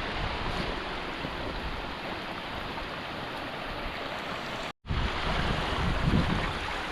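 Steady rush of a fast-flowing mountain river over boulders and small waterfalls, cut off by a brief silent gap about two-thirds of the way through before resuming.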